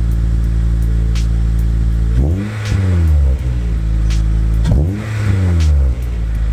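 Acura RSX's 2.0-litre K-series four-cylinder idling through a Yonaka catback exhaust and a test pipe in place of the catalytic converter, revved twice: each rev climbs quickly and drops back to idle within about a second, the first about two seconds in and the second about two and a half seconds later.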